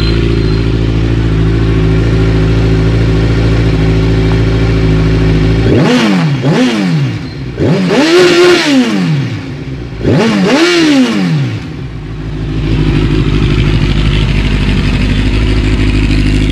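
2014 Kawasaki Ninja 1000's inline-four idling through an aftermarket exhaust, then revved while standing: two quick blips about six seconds in, then two longer revs rising and falling in pitch, before it settles back to a steady idle.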